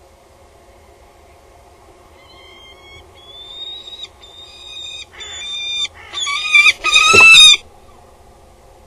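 Male peregrine falcon calling loudly as he flies in with prey: about six harsh, pitched calls in quick succession, growing louder. A low thump near the end as he lands on the nest-box grating.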